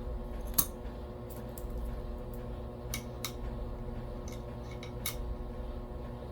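Nickels being handled and set down: a sharp click about half a second in, then a string of lighter clicks and taps, over a steady low hum.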